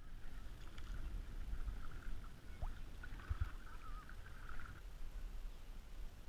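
A kayak being paddled: the paddle blades swish and splash through the water, with a few low knocks about halfway through, over a steady low rumble.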